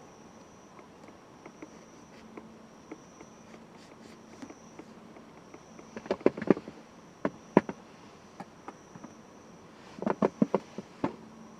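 Insects trilling on a steady high note that breaks off and starts again, with scattered small clicks. About six seconds in and again about ten seconds in come quick runs of loud, sharp clacks.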